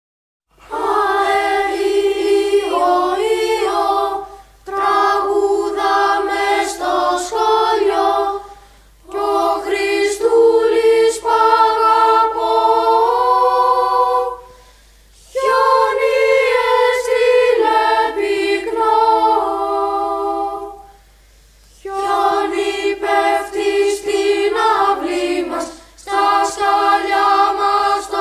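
Children's choir singing a song unaccompanied, in high voices, in short phrases with brief breaks between them.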